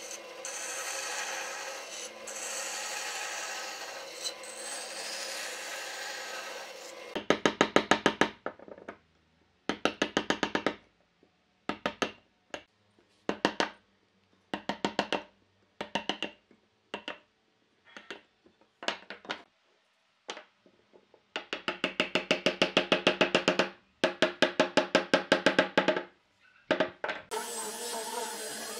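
A band saw cutting through wood runs steadily for about the first seven seconds. Then a chisel is struck in quick bursts of rapid blows, chopping out a notch in the wood, with short pauses between bursts. Near the end an angle grinder with a sanding disc starts running on the wood.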